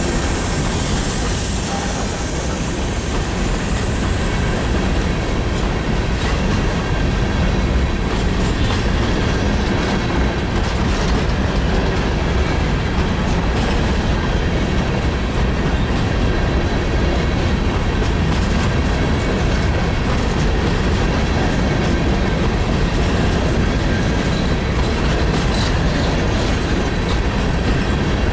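A freight train of coal hopper cars rolling past with a steady rumble and the clickety-clack of wheels over rail joints. Thin steady squeal from the wheels sits over it, and a high hiss fades out in the first few seconds.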